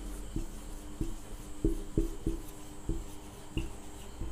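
Marker pen writing digits on a whiteboard: a series of short, irregular taps and rubs as each figure is stroked onto the board.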